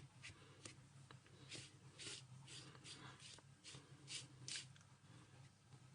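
Faint, soft swishes of a paintbrush on paper, about two strokes a second, as gouache is brushed back and forth across the sky.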